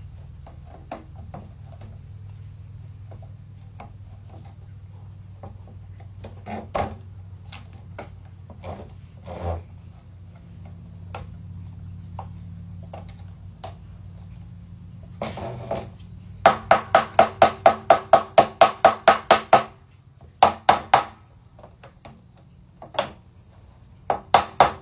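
A mallet tapping plastic hydroponic tubes into their joints on the rack frame: a few scattered knocks and handling at first, then quick, even runs of taps, about five a second, in the second half.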